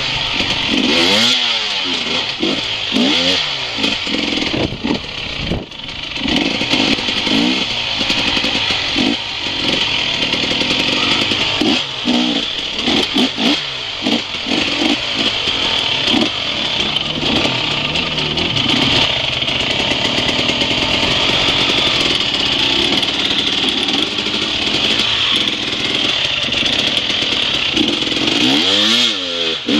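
Enduro dirt bike's engine revving up and falling back again and again as the throttle is worked through slow riding over rocks and stones.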